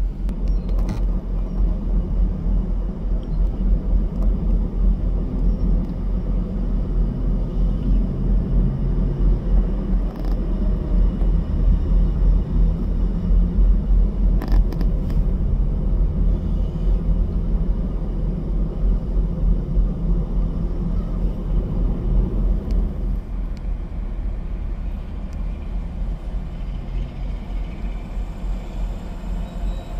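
Steady low engine rumble of semi-trucks idling and moving slowly, heard from inside a vehicle, with a few light clicks.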